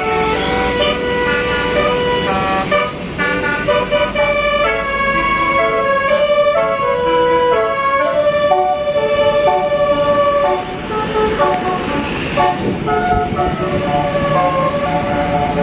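Bus telolet horn, a Basuri multi-tone air horn, playing a melody of stepped notes that change every fraction of a second to a second, with several tones sounding together throughout.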